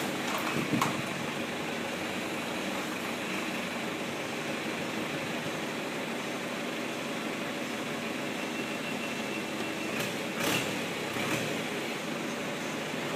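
Farm tractor's engine idling steadily while its front loader holds a raised Volkswagen Beetle body, with a couple of light knocks about ten seconds in.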